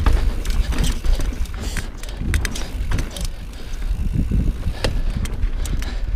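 Transition Sentinel mountain bike riding over a rocky dirt and slickrock trail: a steady low tyre-and-motion rumble with frequent small clicks and rattles from the bike over stones.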